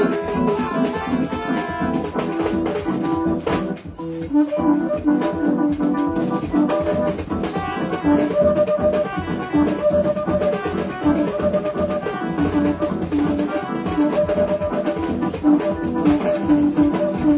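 Loud dance music with a steady drum beat and brass, broken by a brief drop about four seconds in.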